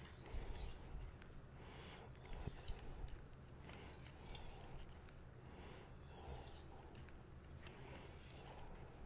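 Damascus R2/SG2 powdered-steel bunka knife edge stroked across a synthetic whetstone: a faint scrape repeated roughly once a second.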